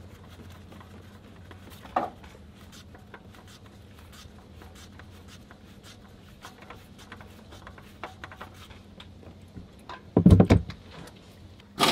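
Faint clicks and scraping as a gloved hand turns the oil filter loose on a Ford Transit Connect. There is a sharper click about two seconds in and a loud, dull thump about ten seconds in, as the filter comes away.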